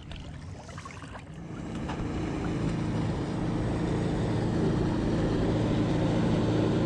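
Distant engine drone, steady in pitch, growing louder from about a second and a half in as it approaches.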